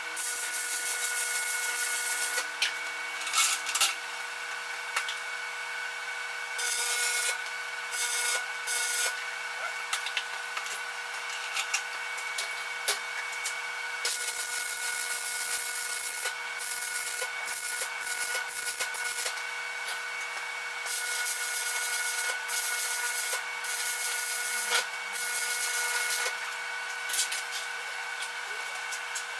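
Electric arc welding on a steel frame: crackling, sizzling welds that start and stop in runs lasting from under a second to a few seconds, over a faint steady hum.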